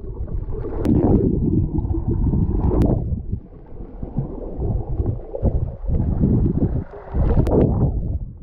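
Muffled underwater sound picked up by an action camera in its waterproof housing: a low rumble of moving water that swells and ebbs as the swimmers move, with three sharp clicks.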